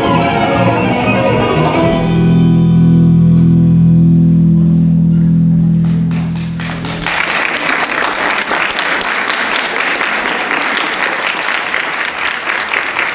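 Dance music ending on a long held low chord that cuts off about seven seconds in, followed by audience applause.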